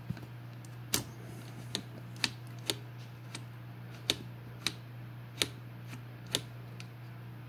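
Irregular light metal clicks and taps, about ten of them, as a screw and a small aluminium bracket are handled on a 3D printer's hotend carriage, over a steady low hum.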